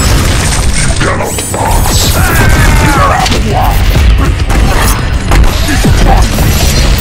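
Layered robot-fight sound effects: heavy metallic crashes and impacts with mechanical servo whirring, and gliding whines around the middle, over loud action-film music.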